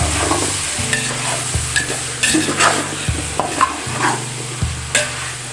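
Diced potatoes sizzling as they fry in oil in a large aluminium pot, while a spatula stirs and scrapes them around the pot in repeated strokes, keeping them from sticking to the bottom.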